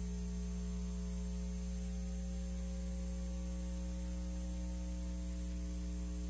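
Steady electrical mains hum with a faint buzz, a low drone with several even overtones that runs unchanged throughout.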